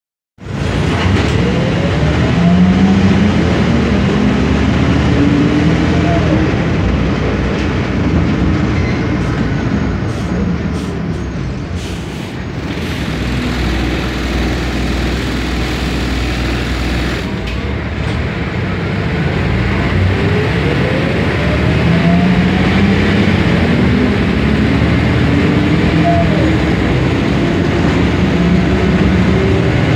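Inside a 1993 Sanos S215 city bus under way: its MAN D2866UH six-cylinder diesel and ZF Ecomat 4HP500 automatic gearbox running with a steady low rumble. The drivetrain tone rises in pitch twice, about two seconds in and again around twenty seconds, as the bus picks up speed.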